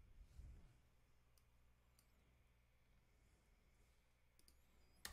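Near silence with a few faint computer mouse clicks: single clicks about one and a half and two seconds in, a quick pair a little after four seconds, and a sharper, louder click near the end.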